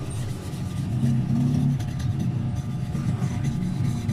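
An engine running with a low hum whose pitch rises and falls a little, like a motor vehicle idling and revving.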